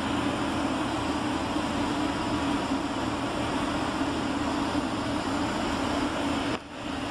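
Steady cabin noise of a Boeing 757-300 airliner on approach, heard from a front-row window seat: an even rush of air and engine noise with a strong low hum. The sound dips sharply for a moment near the end.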